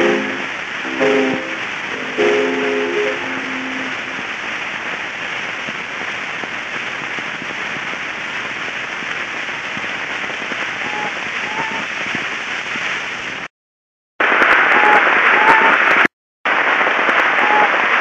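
The last notes of an early gramophone recording of a song die away about three seconds in, leaving only the steady hiss and crackle of the old record's surface noise. The noise drops out twice for a moment near the end.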